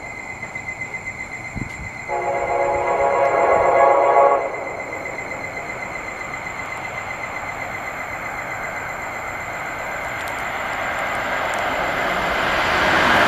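An Amtrak ACS-64 locomotive's Nathan K5LA horn sounds one chord about two seconds in, lasting a little over two seconds. Then the approaching train's rumble swells steadily as it nears at speed.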